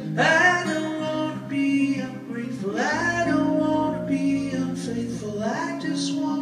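Live acoustic guitar with a male voice that slides up into long wordless notes three times, over steady strummed chords.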